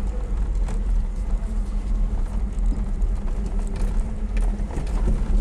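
The IZh-2717 van running down the road, heard from inside the cab: a steady engine and road rumble with scattered rattles, knocks and creaks from the body. The driver can't place them, suspecting the rear box body or something underneath.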